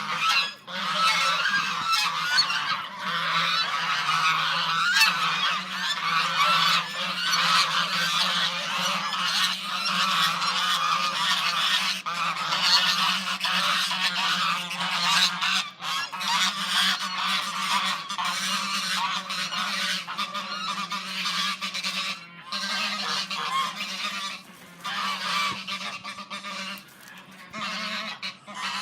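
A flock of birds calling at once: many loud, overlapping calls in a dense, continuous chorus that thins out a little near the end.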